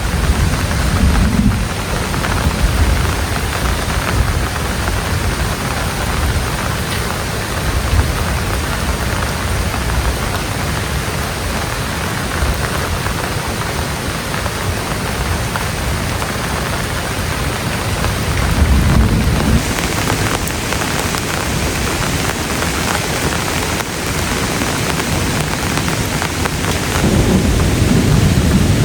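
Heavy rain falling steadily, with low rumbling swells about a second in, about two-thirds of the way through and again near the end.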